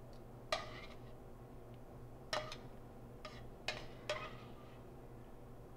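Metal tongs clinking against a stainless steel sauté pan as vegetables are lifted out: about five short, light clinks that ring briefly, spread unevenly.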